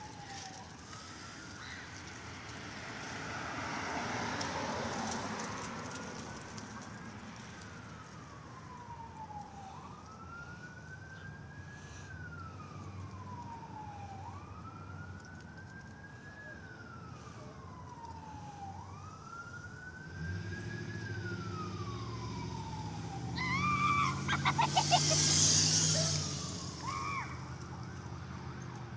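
Police car siren wailing, a slow rise and fall in pitch repeating about every four and a half seconds. Near the end a vehicle's rumble comes up and is loudest briefly.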